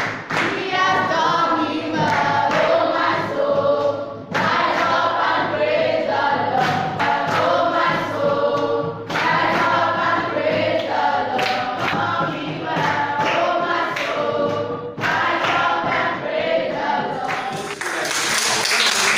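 A group of schoolchildren singing a gospel song together, unaccompanied, in phrases of a few seconds with short breaks between them, with some hand-clapping. Near the end the singing stops and a broad rushing noise takes over.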